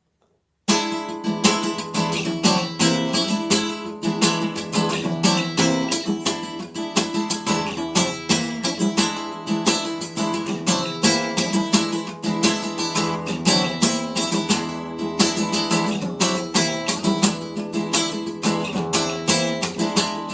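Instrumental song intro led by a strummed guitar, in a steady rhythm. It starts about a second in.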